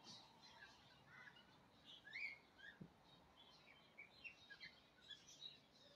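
Faint chirping of small birds: many short, scattered calls, some overlapping.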